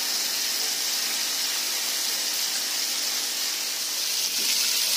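Masala-coated fish pieces sizzling steadily in hot oil on a flat iron tawa.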